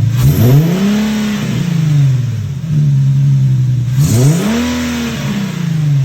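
Infiniti G37 coupe's 3.7-litre V6, fitted with new cold air intakes, revved twice from idle. Each rev climbs and drops back to a steady idle within about two seconds, the second one about four seconds in.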